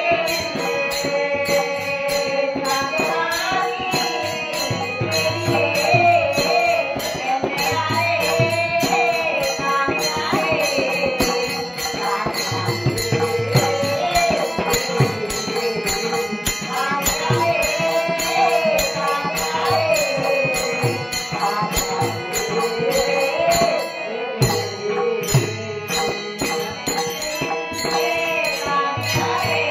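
Marathi devotional bhajan, a gaulan sung by a woman's solo voice with a bhajan group, over steady rhythmic percussion with jingling and rattling strokes and low drum beats.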